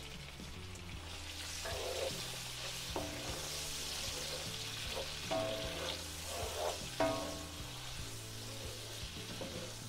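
Octopus pieces sizzling in olive oil with garlic and fresh oregano in a frying pan, a steady hiss, with soft background music.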